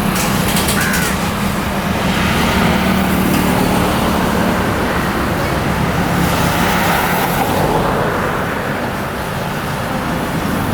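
Motor vehicle engines running steadily amid road traffic noise, with a low hum that eases off after about six seconds and a few faint clicks near the start.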